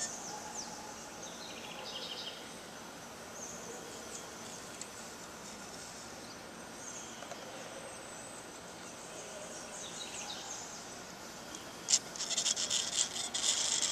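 Steady background hiss with faint, short high chirps now and then. About twelve seconds in, one sharp click, then a rapid run of light clicks as the small model plane is handled on the plastic case.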